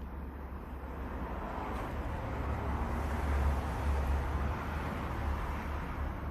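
A road vehicle passing by: tyre and engine noise that swells to a peak about halfway through and then fades.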